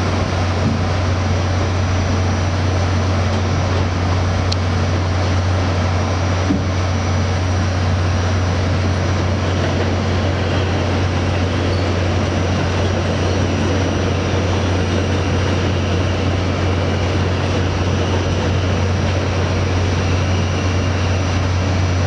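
R68 subway car running at speed, heard from inside the car: a steady rumble with a constant low hum underneath.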